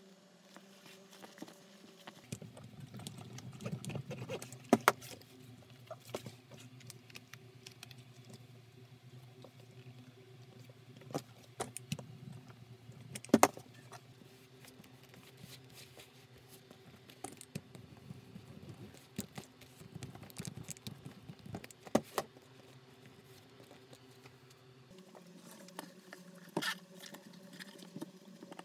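Nylon bag fabric rustling and crinkling as it is handled and folded, with scattered light clicks and taps, the sharpest about halfway through. A faint steady hum sits underneath, and the rustling stops a few seconds before the end.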